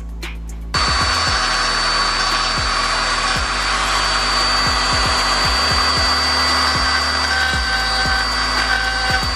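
Hand-held rotary tool running with a steady high whine as its bit drills into the plastic chassis of a scale model truck, starting abruptly about a second in, over background music.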